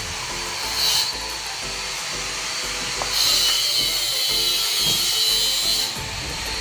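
Background music with a steady beat, over a high-pitched power-tool whine that sounds briefly about a second in, then runs from about three seconds in until shortly before the end.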